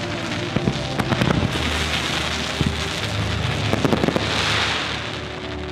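Fireworks crackling and popping: clusters of sharp cracks about a second in and again near four seconds, over a continuous hissing crackle that swells near the end.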